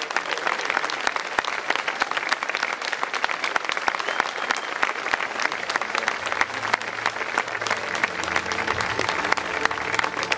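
Large audience applauding, a dense, steady clatter of many hands clapping. About six seconds in, low sustained tones come in underneath.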